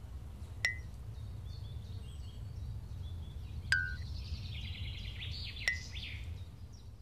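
Birds chirping over a steady low rumble of outdoor ambience, with three short sharp pings spaced a couple of seconds apart.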